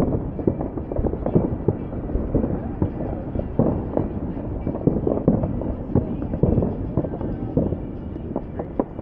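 Fireworks going off continuously at a distance: many overlapping bangs and crackles at uneven intervals over a constant low rumble.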